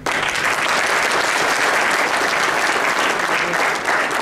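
Audience applause, many people clapping at once, breaking out suddenly at the start and holding steady, easing slightly near the end.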